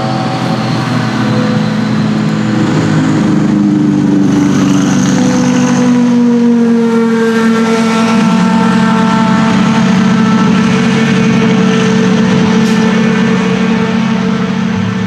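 Hypercar-class endurance racing prototype engines running, several engine notes at once and loud throughout. One note slides slowly down in pitch over the first several seconds, then the notes hold fairly steady.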